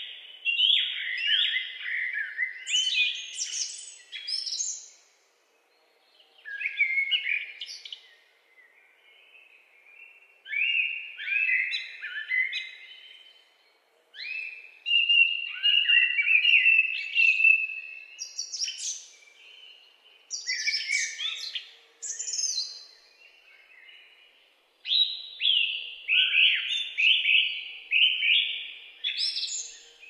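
Songbirds singing: six song phrases, each a quick run of notes lasting two to four seconds, separated by short pauses.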